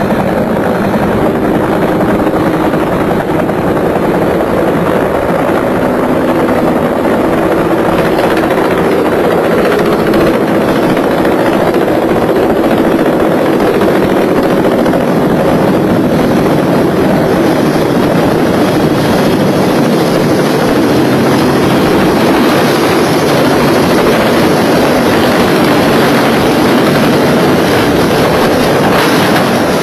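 Aircraft engine noise: a loud, steady drone with a faint humming tone, unbroken throughout.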